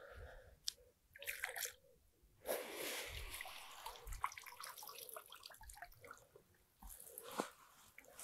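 Water pouring off a padded carp unhooking mat as it is lifted out of a lake. The splashing stream starts about two and a half seconds in and thins to scattered drips near the end.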